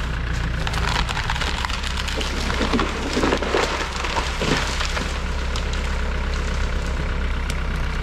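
Compact tractor engine running steadily while dead wood and brush crack and splinter under the tractor's pull, with the crackling densest about three to four and a half seconds in.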